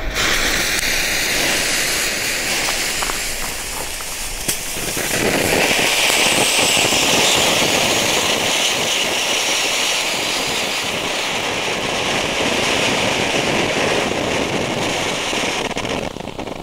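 Three small ground-fountain fireworks (EMP volcanoes) hissing steadily as they spray sparks. The spray grows louder about five seconds in and dies down near the end.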